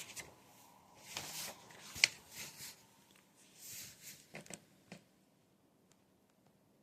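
Faint rustling and soft clicks, with one sharper click about two seconds in, then quiet from about five seconds in.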